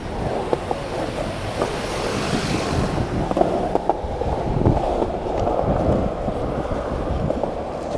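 Skateboard wheels rolling over city pavement: a steady rumble with scattered small clicks from joints and cracks in the surface, and wind on the microphone.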